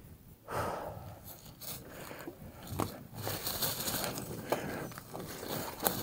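Mountain bike ridden along a dirt singletrack trail: tyres crunching and scraping over the trail surface, with scattered sharp knocks and rattles from the bike over bumps.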